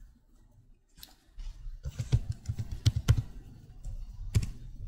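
Computer keyboard being typed on: a quick run of keystrokes about two to three seconds in, then a single louder click near the end.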